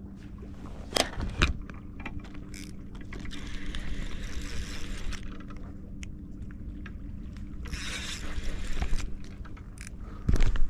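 Handling noise as an angler grabs a surfcasting rod and strikes into a bite: two sharp knocks about a second in, rustling and scraping in the middle, and a heavy thump near the end, over a steady low hum.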